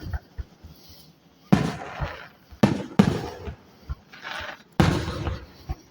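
Aerial fireworks bursting close by: four loud booms about one to two seconds apart, each trailing off, with a few fainter pops between them.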